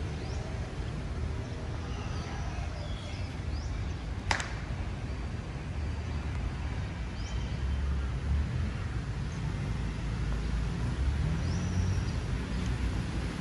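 Outdoor ambience of a city park: a steady low rumble of distant road traffic, a few faint high chirps, and one sharp click about four seconds in.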